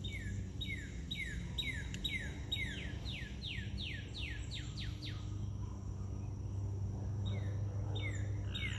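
A bird singing a run of repeated down-slurred whistled notes, speeding up, breaking off about halfway and starting again near the end, over a steady low hum.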